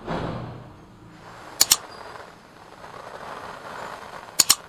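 Two sharp double clicks of a computer-mouse sound effect, about a second and a half in and again near the end, over slow, deep breaths taken in through the nose and let out through the mouth in a belly-breathing exercise.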